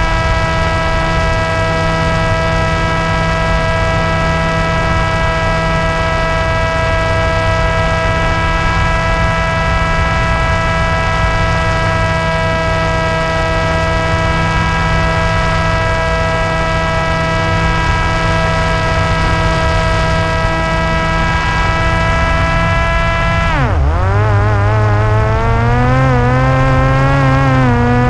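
Parrot Disco's electric pusher motor and propeller whining at a steady pitch over a low rush of wind. Near the end the pitch dips sharply, then carries on lower and wavering as the throttle changes.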